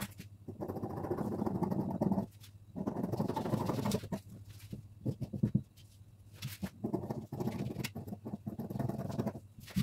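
Scissors cutting through net lace fabric on a table, in rough stretches of a second or more with short pauses between cuts.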